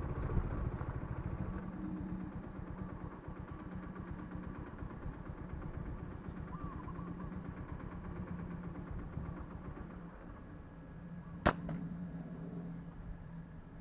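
A small engine idling steadily with a low hum. A single sharp snap comes near the end, the crack of a slingshot shot.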